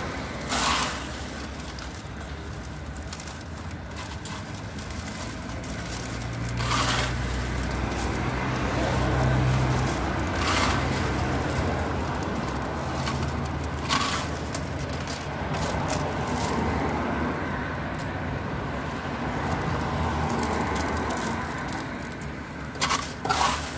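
Popcorn rustling and a clear plastic cup crinkling as popcorn is scooped from a popcorn machine's tray, with a few short crackles. Under it a low rumble of road traffic grows louder near the middle and then fades.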